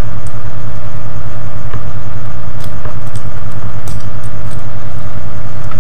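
Steady, loud low hum of a motor or fan-like background noise, with a thin steady tone above it and a few faint clicks from about two and a half seconds in.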